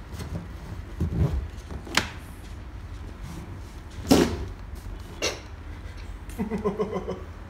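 A few knocks and thumps, the loudest about four seconds in, then a short buzzing whoopee-cushion fart near the end.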